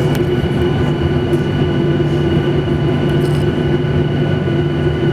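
Steady cabin drone inside a Boeing 737-800 after landing: a constant low hum with a few steady higher whining tones, from the engines or air-conditioning.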